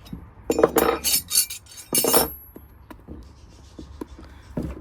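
Metal tools clinking and clattering in two loud bursts, about half a second in and again at two seconds, the second ending in a short ring, during hand removal of a solid electric scooter tyre.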